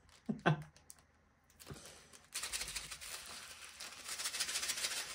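A small plastic bag crinkling while tiny resin diamond-painting drills pour and scatter from it, making a dense rapid pattering that starts a little over two seconds in.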